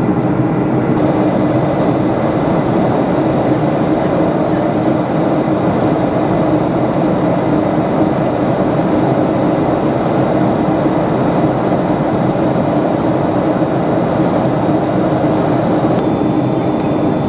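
Steady jet cabin noise inside a Boeing 737-500: the drone of its CFM56-3 turbofans and rushing airflow, heard at a window seat beside the engine as the airliner descends toward landing.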